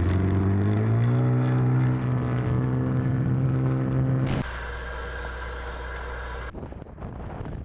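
An engine revs up, its pitch rising over the first second, then runs steady and cuts off abruptly about four seconds in. A hiss follows, then gusty wind noise on the microphone.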